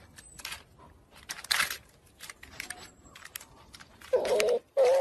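Bear cub's claws scratching and clicking on tree bark as it clings to and slides down the trunk, in scattered short scrapes. About four seconds in, a loud wavering whine starts, twice.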